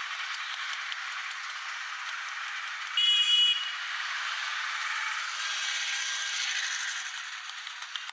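Steady roadside background noise, with a short, loud, high-pitched horn beep about three seconds in.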